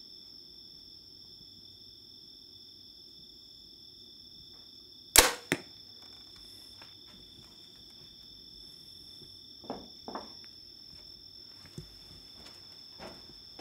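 A bow shot: one sharp, loud crack about five seconds in with a shorter smack a fraction of a second later, over a steady high insect buzz. A few softer thumps follow near the end.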